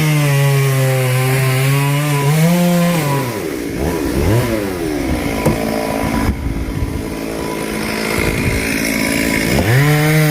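Two-stroke chainsaw revved to full throttle and held there for about three seconds, rising a little in pitch before dropping back. After a few quick blips it runs lower, then is revved up again near the end.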